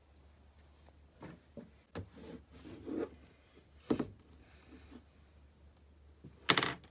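Hands handling a shrink-wrapped cardboard iPad box on a desk: a scatter of soft taps, rustles and light knocks, then one louder brief sound about six and a half seconds in as the box is lifted.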